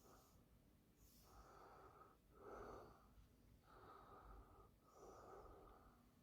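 Near silence with four faint, slow breaths, each about a second long.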